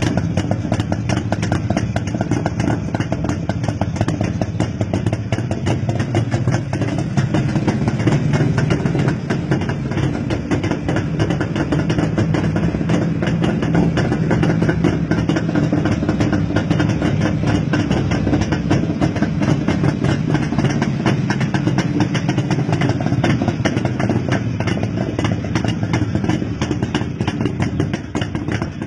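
Jawa motorcycle's two-stroke engine idling steadily, with a fast, even exhaust beat.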